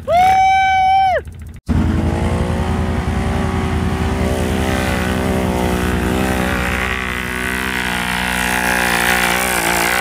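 An ATV engine revving high, its pitch falling away a little over a second in. After a brief break it runs hard and steady, with a rushing hiss over it.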